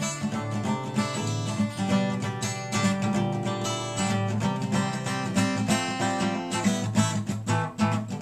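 Solo acoustic guitar played with no singing, a steady run of picked and strummed chords.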